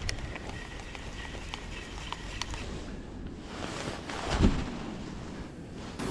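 Spinning reel handled, giving a few light clicks over a steady hiss, then a loud rushing whoosh that builds and peaks about four seconds in.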